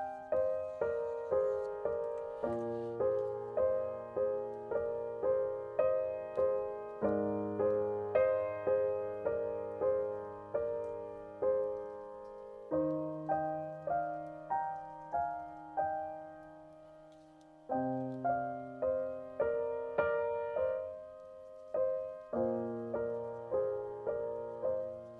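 Background piano music: a gentle melody of evenly paced notes over low bass notes that change every few seconds, with a brief lull about two-thirds of the way through.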